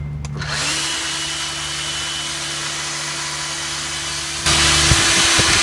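Hilti DD160 diamond core drill switched on with a click, its motor spinning up over about half a second to a steady run with a constant whine. It gets abruptly louder about four and a half seconds in.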